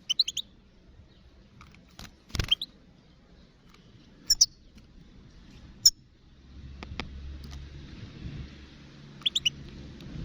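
Wild European goldfinch giving short, high chirping calls in brief clusters: at the start, near the middle and near the end. A single knock about two and a half seconds in, and a wind-like rushing with low rumble from about six seconds on.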